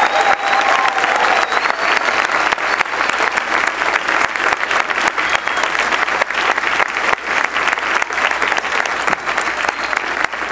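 Large audience applauding, a dense, steady clapping that holds at one level throughout.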